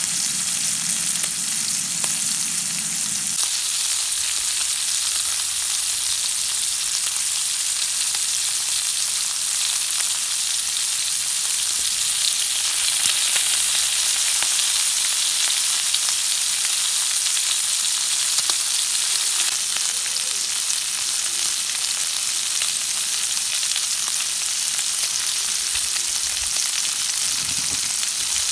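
Food frying in a pan, a steady sizzling hiss that grows brighter about three seconds in, with faint scattered ticks.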